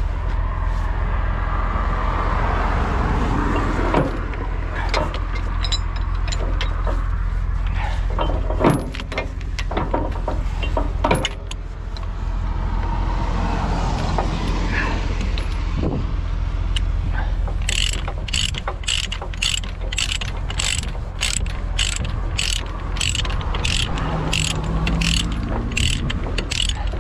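Semi truck under way, a steady low engine and road rumble with scattered clicks and rattles. About two-thirds of the way through, a regular clicking starts, about two clicks a second.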